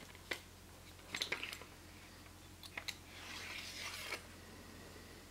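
Clicks and small knocks as a wakizashi's hilt fittings and scabbard are handled, then the blade sliding out of its scabbard with a rasping hiss for about a second, ending in a click.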